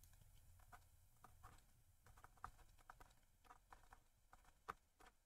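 Near silence with faint, irregular light ticks and taps of a stylus on a tablet during handwriting, a couple slightly sharper about two and a half and four and a half seconds in.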